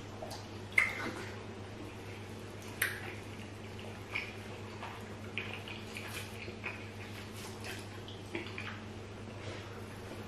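Close-miked wet eating sounds of rice balls and peanut soup eaten by hand: scattered mouth smacks and chewing clicks, two sharper ones about one and three seconds in, over a steady low hum.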